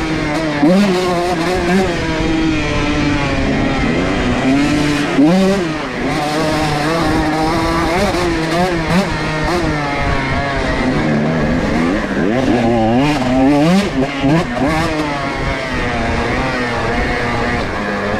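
125cc two-stroke dirt bike engine ridden hard, its pitch climbing and dropping again and again with the throttle, with quick rising revs around five seconds in and again near thirteen seconds. Scattered sharp clicks and knocks sound over the engine.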